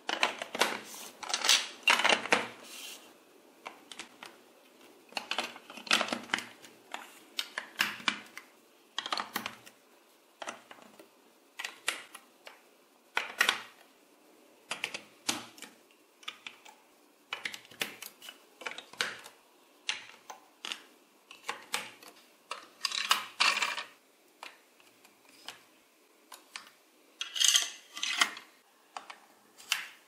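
Large plastic building blocks being handled and pressed together: irregular plastic clicks and clacks, some in quick clusters, with short pauses between.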